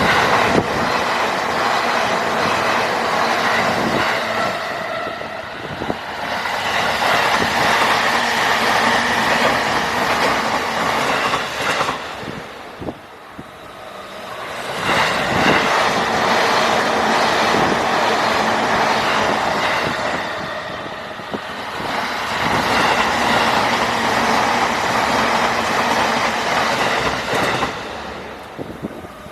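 JR Nambu Line electric trains running over a level crossing, their wheels clattering over the rail joints. The loud rumble dips sharply three times and builds again after each dip.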